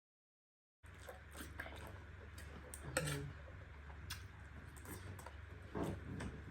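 Spoon clinking and scraping on a plate while someone eats, in scattered small clicks with a louder clink about three seconds in. It starts abruptly after about a second of dead silence.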